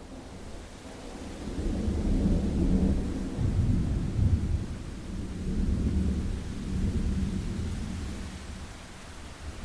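Rolling thunder rumbling over steady rain, swelling in about two seconds in, peaking near the middle and slowly dying away.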